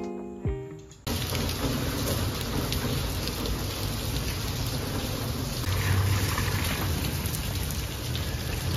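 Steady rain falling on wet paving, cutting in suddenly about a second in as the last plucked notes of a guitar tune die away.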